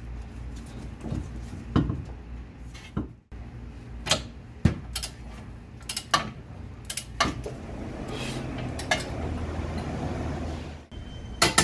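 Scattered metallic clinks and knocks of hand tools and steel suspension parts as a new lower ball joint is seated in the steering knuckle and its nut is turned with a long ratchet.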